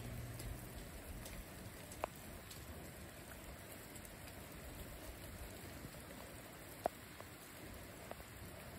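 Faint, steady hiss of rain falling during a thunderstorm, with two sharp ticks about two seconds in and again about seven seconds in.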